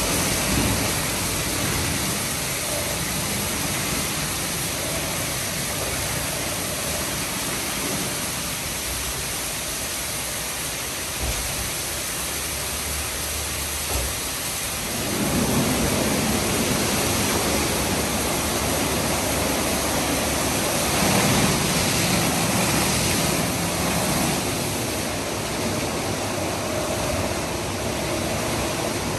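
2006 Istobal M9+ rollover car wash in its wash stage (brushes, side high-pressure jets and underbody spray): a steady rush of water and machinery. It grows louder and fuller about fifteen seconds in.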